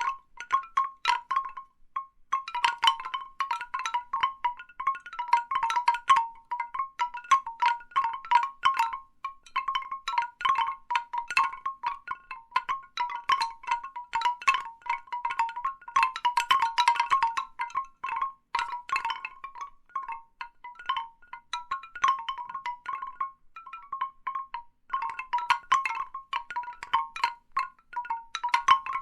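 Large bamboo wind chimes knocking together: irregular clusters of knocks with a ringing tone, easing off briefly now and then before picking up again.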